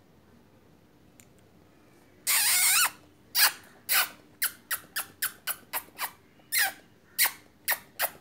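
A small animal squealing. One long, high, wavering squeal comes about two seconds in, then a quick run of short, sharp squeaks, each falling in pitch, about two to three a second.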